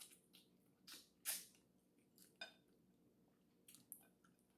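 Quiet, close eating sounds of boiled blue crab being eaten by hand: a handful of short sucks, smacks and crunches of shell and meat, the loudest a little over a second in.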